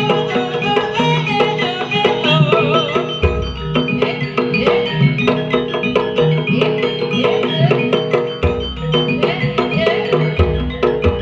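Jaranan music: gamelan-style percussion with drums and repeated struck metal notes, a wavering melody above it, and deep gong strokes about 3, 8 and 10 seconds in.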